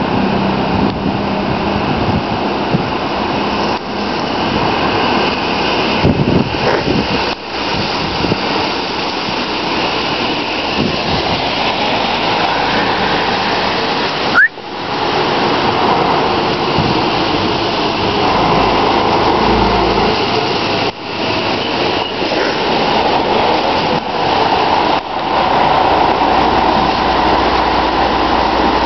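A steady, loud rush of street noise, traffic on a wet road and wind on the microphone, broken by a few brief sudden dips.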